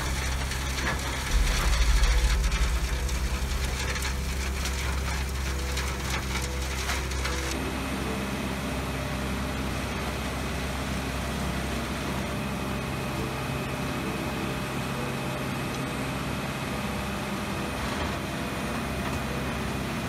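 Doppstadt AK 560 wood shredder running, its engine and rotor giving a steady hum. For the first seven seconds or so there is cracking and crunching of wood being shredded, with a louder, deeper surge about a second in. After that the sound changes to a steadier, smoother running hum.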